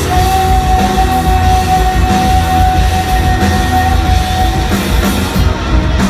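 Live rock band playing loud, with electric guitar, bass guitar and drums. A single high note is held steady for about four and a half seconds over the band, then drops away.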